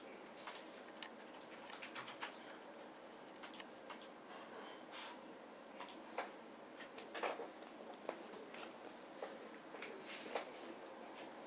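Faint, irregular clicks and light taps, spaced unevenly, over a low steady room hiss.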